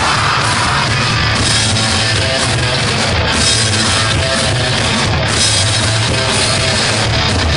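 Live psychobilly band playing loudly: upright double bass, electric guitar and drum kit.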